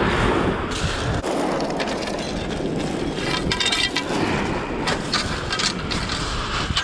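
Steady rush of wind and surf, with runs of sharp clicks and rattles in the middle seconds as fishing rods and reel are handled on and against the shingle.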